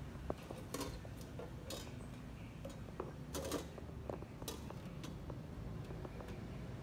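Dishes and utensils clinking in a food-stall kitchen: scattered light clicks and a few short rattling clatters over a steady low hum.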